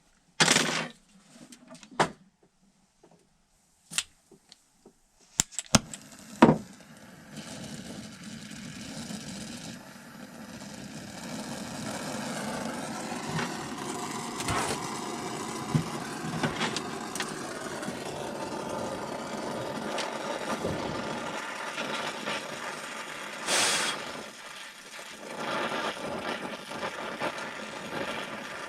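A few sharp clicks and knocks, then about six seconds in a small motor-driven power tool starts and runs steadily with a low hum to the end, broken by one loud knock near the end.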